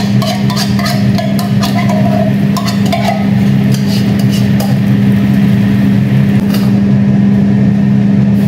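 A steady low mechanical hum, with scattered light clicks and clinks over roughly the first four seconds while coconut milk boils in frying pans and is poured in from a carton.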